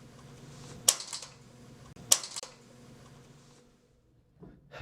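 Two sharp metallic clicks about a second apart, each followed by a few lighter ticks, as a 1U rack server is lowered onto its toolless quick-deploy rails and its alignment pins seat in the rail slots. A faint steady hum sits underneath and fades out partway through.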